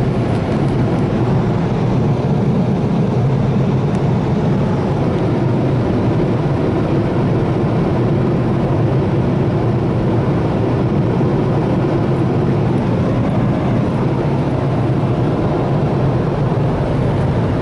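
Car wash air dryers blowing hard on the car, a loud steady rush of air heard from inside the cabin, drying the windshield.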